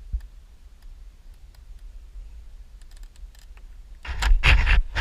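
Plastic interior trim panel in a Jeep Wrangler being pulled down by hand: a few faint clicks, then about four seconds in a loud burst of rattling, clicking plastic as it is tugged against a fastener still holding it.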